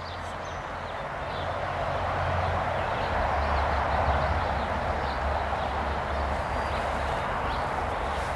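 A steady low rumble under a dense rushing hiss, swelling louder about two seconds in and then holding, with faint high chirps.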